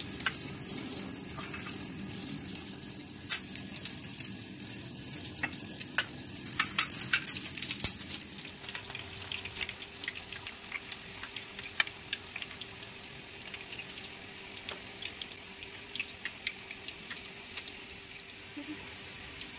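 Oil sizzling and crackling as breadcrumb-coated croquettes shallow-fry in a pan. Sharp pops and clicks are thickest and loudest in the first eight seconds, after which it settles to a steadier hiss.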